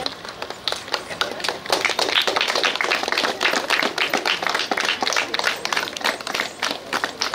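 Audience applauding with a spatter of hand claps, which grows fuller about two seconds in and thins a little near the end.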